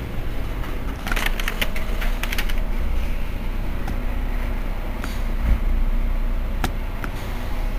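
Mercedes-Benz Citaro C2 city bus's diesel engine idling steadily at a stop, a low rumble. A quick series of light clicks comes about a second in, and a few single clicks follow later.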